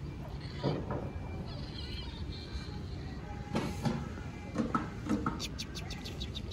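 A steady low rumble of background noise, with a few short soft knocks and bumps from kittens and a hand moving about a wooden cat shelter. A quick run of high ticks comes near the end.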